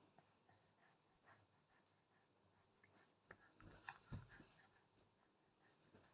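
Near silence with faint rustling of a baby shifting on a bedsheet, and a few soft thumps and short clicks a little past halfway through.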